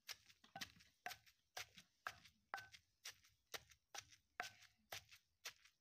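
Stone pestle pounding sliced onions and fried fish in a stone mortar: regular dull knocks, about two a second.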